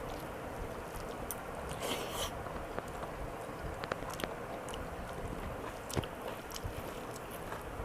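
Close-up mouth sounds of a person chewing a mouthful of rice with dal and mashed potato chokha: soft wet clicks and smacks scattered through, over a steady background hiss.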